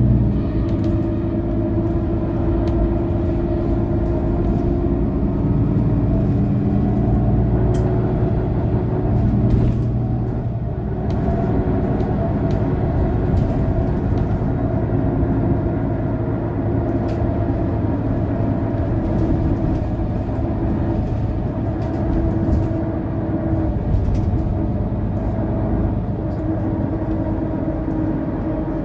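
Mercedes-Benz O530 Citaro city bus engine running steadily as the bus drives, heard from inside the passenger cabin. The engine note shifts a little in pitch, with a few light clicks from the cabin.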